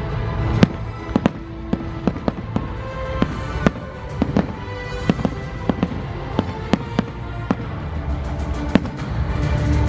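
Fireworks bursting in a quick run of sharp bangs, about two a second, growing sparser near the end, over the display's music soundtrack.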